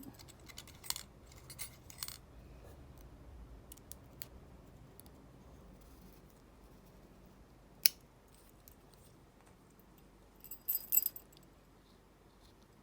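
Small metal parts of a Lockwood 334C45 padlock clicking and clinking as it is taken apart by hand. There are scattered light clicks at first, a single sharp click about eight seconds in, and a short cluster of ringing metallic clinks about eleven seconds in.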